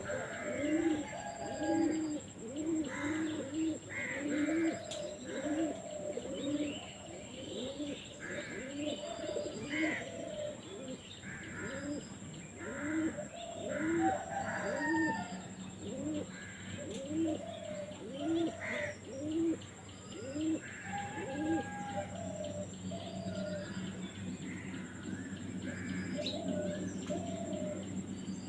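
Birds calling: a long run of short, low, repeated calls at about two a second, with higher calls over them, thinning out about twenty seconds in.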